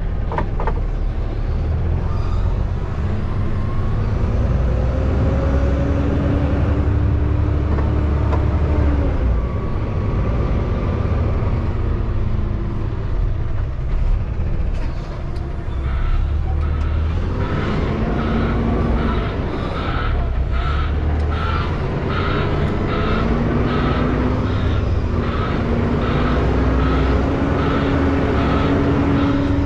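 Semi truck's diesel engine running under throttle while reversing a trailer, its pitch rising and falling. About halfway through, a backup alarm starts beeping steadily, roughly one and a half beeps a second.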